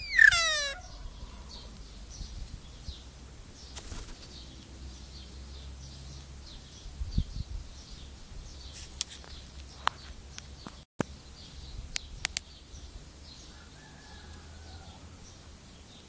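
A myna's loud wailing call, mimicking a human baby's cry, breaks off within the first second. After that, faint high chirps repeat about twice a second, with a few sharp clicks.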